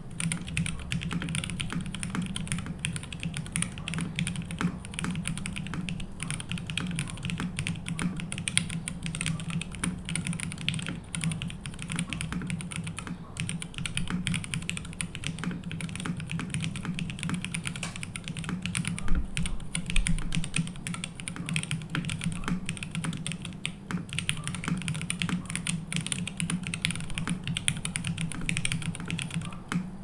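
Continuous typing on a Prophet custom mechanical keyboard: lubed Opblack switches with Cherry top housings on a polypropylene plate with no foam, under PBT keycaps, giving a dense run of key clacks. One louder low thud about two-thirds of the way through.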